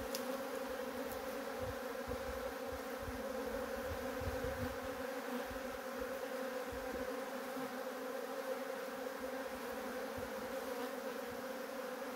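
Many honeybees buzzing in a steady hum around a hive entrance, stirred up after being shaken off the frames onto the front of the hive.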